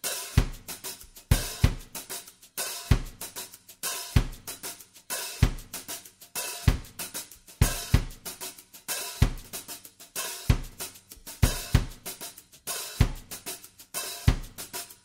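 Background music: a drum-led track with a steady beat, a kick drum about every second and a quarter and busy cymbals and hi-hat between.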